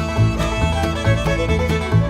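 Upbeat background music with a steady bass beat.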